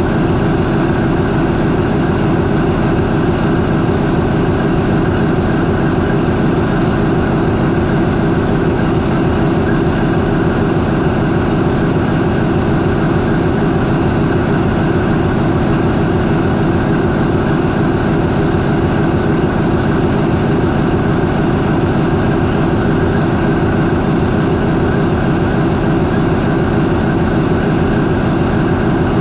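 MAN 20V28/33D STC twenty-cylinder diesel, a ferry's main propulsion engine, running steadily at idle at about 400 RPM.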